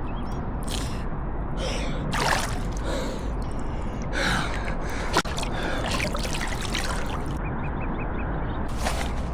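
A tired swimmer breathing hard, gasping in a string of loud breaths about a second apart, over a steady rushing noise, with one sharp click about five seconds in.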